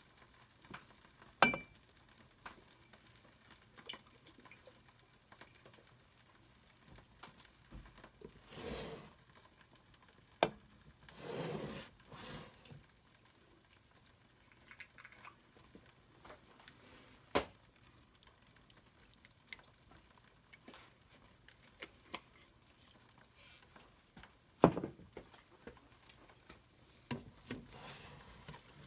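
Occasional sharp clinks and knocks of pots, lids and utensils, with a few brief scraping or stirring swishes, over a quiet kitchen.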